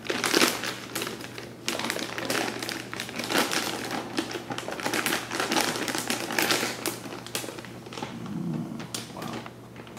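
Metallic anti-static bag crinkling and crackling in quick, irregular rustles as a video card is slid out of it. The rustling thins out and gets quieter near the end.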